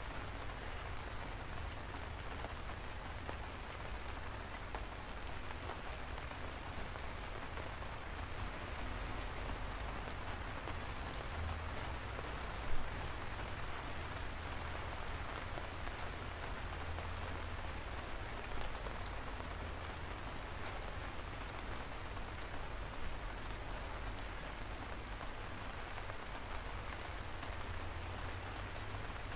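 Steady rain falling, with a few single drops landing sharply and distinctly. The loudest drop comes a little before halfway.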